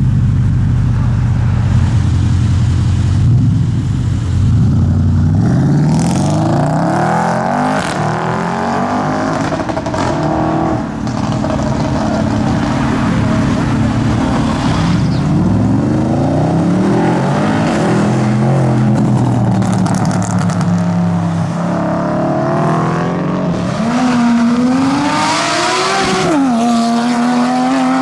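Straight-piped, tuned Audi RS6 C7's twin-turbo 4.0-litre V8 running loud. It holds a steady low drone for the first few seconds, then accelerates hard, the exhaust note rising in repeated sweeps broken by gear changes.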